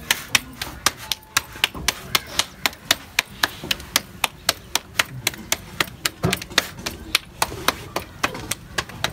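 Roti dough being slapped from palm to palm to flatten it by hand: a quick, even run of sharp slaps, about three a second.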